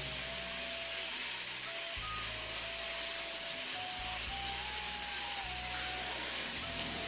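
Shower water spraying with a steady hiss, under soft background music of single held notes.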